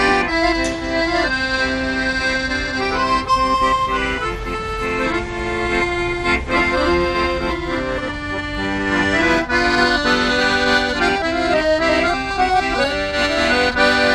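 Piano accordion playing a melody over held chords, the notes changing in steps without a break.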